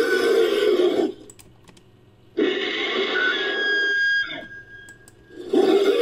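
Made-up creature calls for a winged, ape-like monster, edited together from man-bat and monkey-man sound effects. Three loud calls with short quiet gaps between them; the middle one carries a thin, high whistling tone and fades away.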